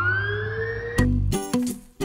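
An emergency-vehicle siren sweeping upward in pitch over a steady low hum. About a second in it cuts off, and strummed guitar music begins.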